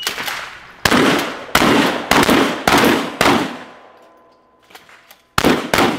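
12-gauge pump shotgun firing a rapid string of about six shots roughly half a second apart, then, after a pause of about two seconds, one more shot near the end: a follow-up shot on a steel popper that was hit but did not fall.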